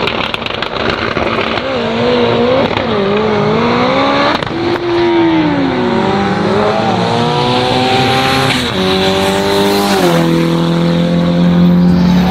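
Drag-racing car engine revving on the line, then accelerating down the strip with its pitch climbing, dropping twice near the end as it changes gear, and then holding steady.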